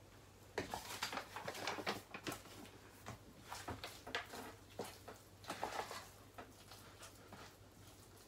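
A spoon stirring thick cottage-cheese and rice-flour batter in a plastic bowl, making irregular scraping and knocking strokes against the bowl. The strokes begin about half a second in and grow fainter and sparser over the last couple of seconds.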